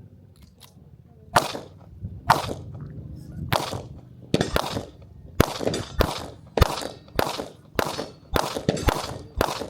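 Gunshots in a steady string of about a dozen sharp cracks, each with a short ringing tail. They start about a second in and come faster, from roughly one a second to nearly two a second.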